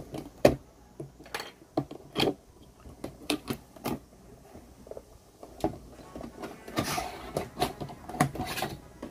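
Irregular knocks and clicks of a heavy cardboard figure box being handled and opened, with a denser stretch of rustling packaging from about seven to nine seconds in.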